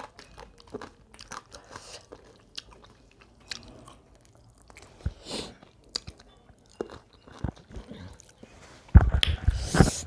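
Close-up eating sounds: chewing and biting food, with small crunches and wet mouth clicks. A louder cluster of crunching noises and low thumps comes near the end.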